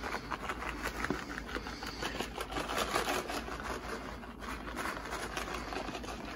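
Plastic pouch of shredded mozzarella crinkling in the hand as it is shaken to sprinkle cheese, a dense run of small crackles and rustles.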